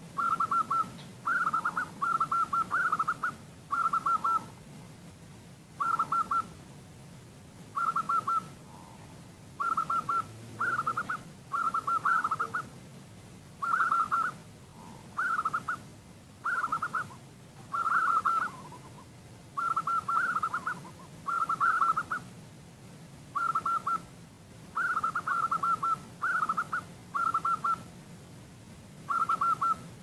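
Female zebra dove (perkutut) calling: short, fluttering coos, each about half a second long, repeated roughly once a second in irregular runs with the odd two-second pause. This is the female's call that draws males and sets other doves calling.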